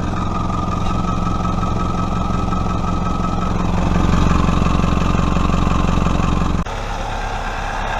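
Toyota RAV4's 3S-FE four-cylinder engine running steadily, its exhaust sealed after a leak was welded shut. It grows louder about halfway through, then drops suddenly to a quieter sound near the end.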